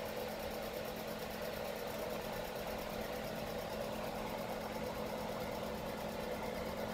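A steady mechanical hum of a small motor, with a faint low tone and no change in level.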